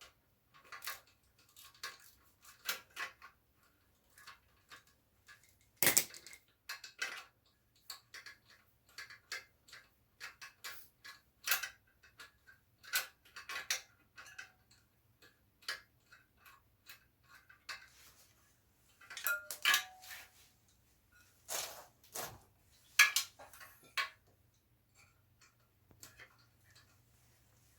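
Ratchet with a 10 mm socket clicking in short irregular runs, with metal tools clinking, as the front mudguard bolts are undone.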